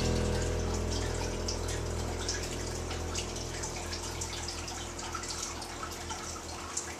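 Water trickling and dripping steadily, as from a small rock water feature, while the last sustained chord of background music slowly dies away underneath.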